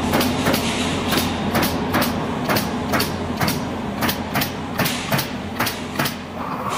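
Pneumatic coil nailing guns (MAX CN80 and CN55) on an automatic pallet nailing machine firing nails into pallet boards, a sharp shot about twice a second, over a steady machine hum. The shots stop shortly before the end.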